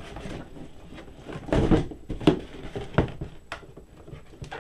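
Cardboard box and plastic packaging handled by hand: a scraping rustle about a second and a half in, then a few sharp knocks and clicks.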